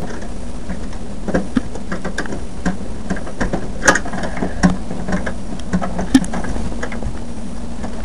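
A screwdriver turning a screw through a metal drive bay into a hard drive, giving irregular clicks and ticks of metal on metal, over a steady low hum.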